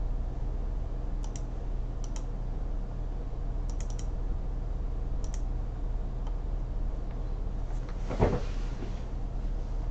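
Scattered clicks of a computer keyboard and mouse, in small clusters, over a steady low hum. About eight seconds in comes a single duller thump, the loudest sound.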